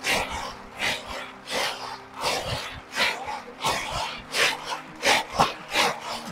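Dry tiger nuts rubbed and churned by hand against a large woven basket: rhythmic rasping swishes, about one to two a second, as the soil is scrubbed off the nuts without water.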